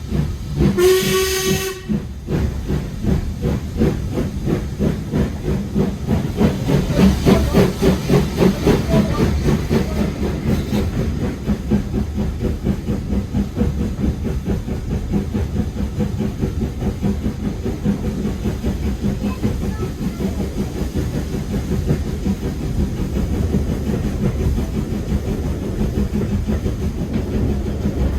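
Steam locomotive whistle blowing once, briefly, then the train running with rhythmic exhaust beats and carriage rumble, louder for a few seconds about a quarter of the way in before settling to a steady run.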